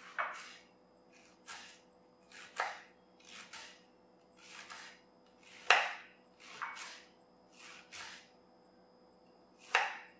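Kitchen knife chopping red cabbage on a wooden chopping board: about a dozen crisp cuts through the leaves at an uneven pace of roughly one a second, one a little past halfway louder than the rest.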